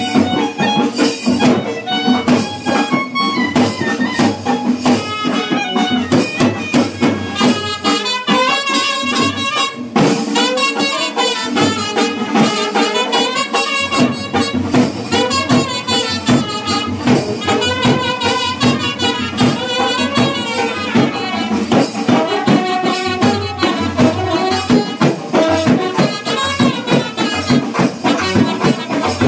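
Brass band party playing a devotional Maa Kali song: trumpets, a clarinet and a euphonium-type horn play the tune over a drum keeping a steady beat.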